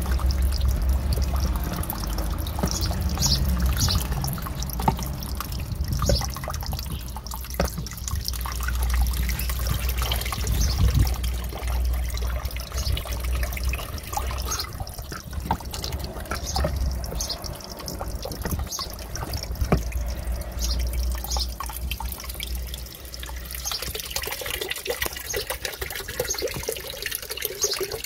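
Small fountain pump's jet of water splashing and trickling steadily into a shallow turtle tub, with many small drips and plinks and a low rumble, strongest in the first half.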